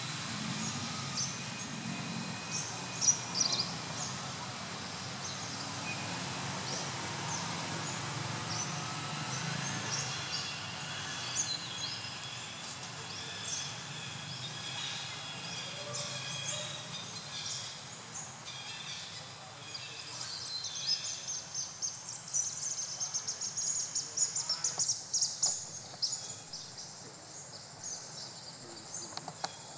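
Outdoor ambience among trees: a steady background hiss with many short, high chirps of small birds and insects, busiest and most rapid in the last third.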